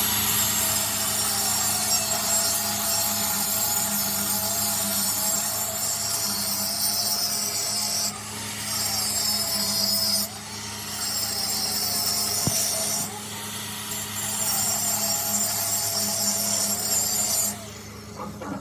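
MIG welding arc crackling and hissing on copper in three runs of several seconds, with two short breaks between them, cutting off near the end. A steady low hum and a faint wavering tone run underneath.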